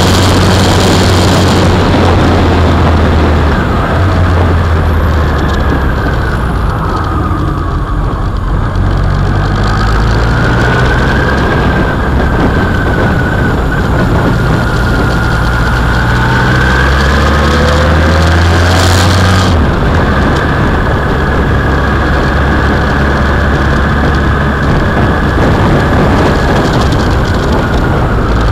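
Motorcycle engine running under way, its pitch rising and falling with throttle and gear changes, over a steady rush of wind and road noise.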